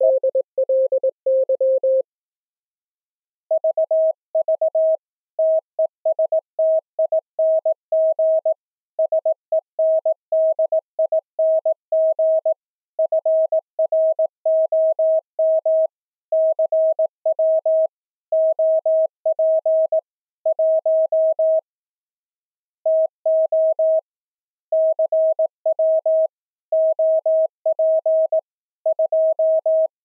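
Morse code sent as pure audio tones from software keyers. For the first two seconds two stations key at once, a 639 Hz tone and a 528 Hz tone overlapping. After a short pause only the 639 Hz tone keys on and off, sending "vv testing sending from CW op 1 to CW op 2" in Morse.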